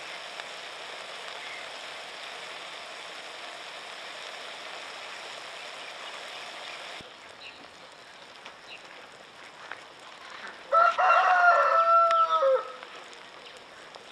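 Sausage patties sizzling steadily in a frying pan on a parabolic solar cooker, then the sound drops away at a cut. Near the end a rooster crows once, a loud call of about two seconds that falls in pitch at its close.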